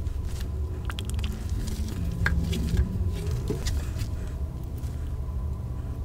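Wet, dye-soaked fabric bundle squished and turned by rubber-gloved hands on a wire sink rack: scattered soft squelches and light clicks over a steady low hum.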